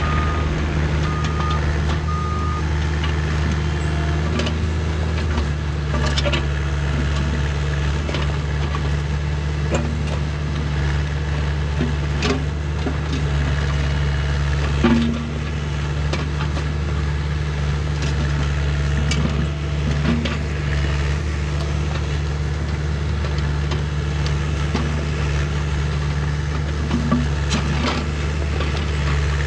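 A heavy machine's engine running steadily, with three short reversing-style beeps near the start and scattered knocks throughout.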